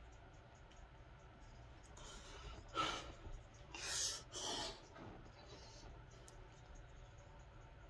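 A person breathing hard after a set of dumbbell curls: four short, breathy exhales in quick succession, between about a third and two thirds of the way in.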